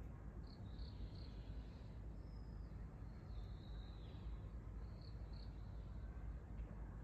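Faint high-pitched chirps over a low steady rumble: a few short chirps near the start, longer drawn-out notes in the middle, and two more short chirps about five seconds in.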